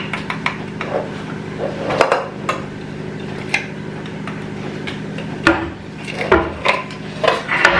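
Scattered light clicks and clinks of a container and spoon knocking against a stainless steel grinder jar while powder is tipped into it, over a steady low hum.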